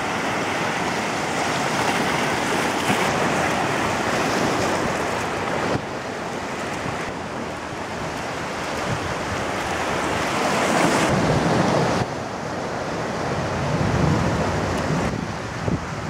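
Ocean surf washing and breaking on a rocky shore, a steady rushing noise mixed with wind buffeting the microphone. The sound changes abruptly twice, about six and twelve seconds in.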